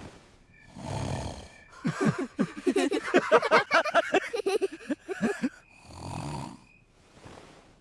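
Cartoon snoring. A breathy snore comes in about a second in, then a long rattling snore of rapid fluttering pulses lasts about four seconds. It ends with breathy breaths carrying a thin whistle.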